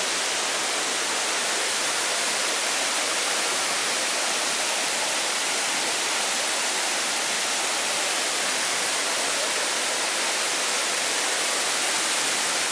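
Steady, unbroken rush of water pouring over a dam's waterfall.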